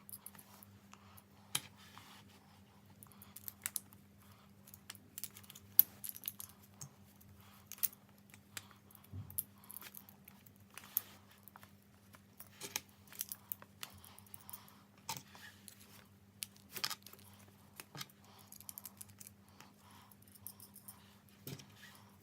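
Small plastic Lego pieces and minifigure parts clicking and clattering as they are handled, in many irregular sharp clicks with a sharper knock about six seconds in, over a faint steady hum.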